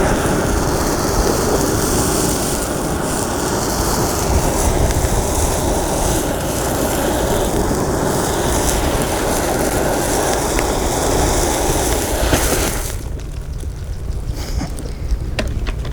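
Felt puppet burning: a steady rushing noise of the fire with wind rumbling on the microphone. About 13 seconds in the hiss falls away sharply, and a few sharp crackles follow.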